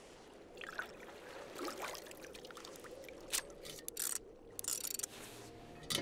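Water pouring into a plastic measuring cup, followed by several sharp clicks and knocks as the cup is handled in the second half.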